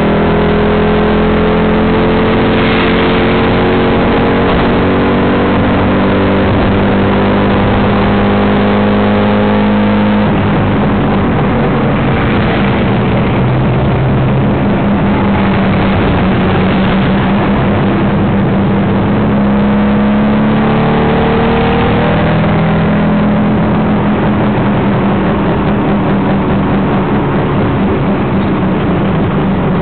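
Tuk tuk (auto rickshaw) engine running loud from the passenger seat, its pitch climbing as it accelerates, with a sudden change about ten seconds in and another climb around twenty seconds. Road and traffic noise under it.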